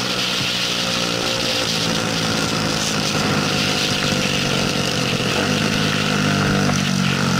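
Bajaj Pulsar 200 NS single-cylinder engine running at low, easy revs, its pitch stepping a few times as the throttle and gears change, with wind rushing over the on-board microphone.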